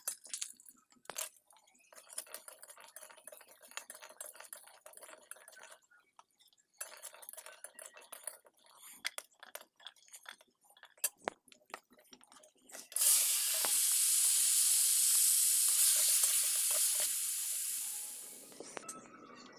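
Cooking in a kadai: a spatula scrapes and taps against the pan. About thirteen seconds in, a loud sizzle starts suddenly as food hits hot oil, then fades away over the last few seconds.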